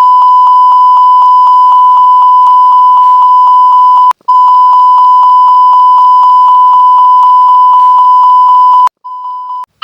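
Aircraft cockpit fire-warning alarm sounding: a loud, steady high tone pulsing about three to four times a second. It breaks off briefly about four seconds in, runs on again, and stops a second before the end after a short, quieter burst.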